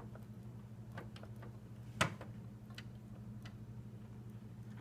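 Light scattered clicks and taps of a graphics card being wiggled in its PCIe slot, with one sharper click about two seconds in, over a steady low hum.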